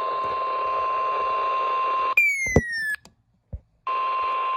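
Weather-radio alert tone: a steady single-pitch tone near 1 kHz over radio static. It breaks off about two seconds in for a short high whistle falling in pitch and a moment of near silence, then resumes near the end.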